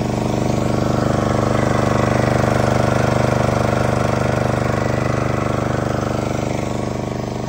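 Small engine of a portable fire-fighting water pump running steadily under load while it feeds a hose spraying water.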